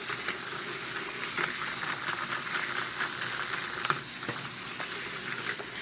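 Several wind-up toys running at once: a steady, dense whirr of their clockwork spring motors, with a few faint clicks.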